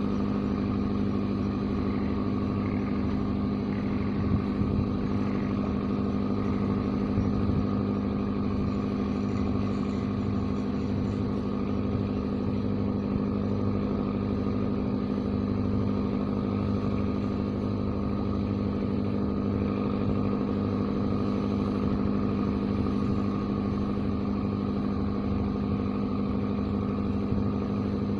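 An engine running steadily at a constant speed: a continuous low hum that does not change pitch.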